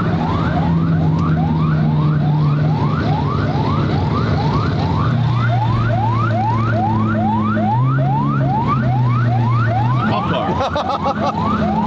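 Police escort siren sounding a fast, repeating rising yelp, about three sweeps a second, over a low vehicle engine hum that shifts in pitch a few times. Near the end a second siren overlaps it.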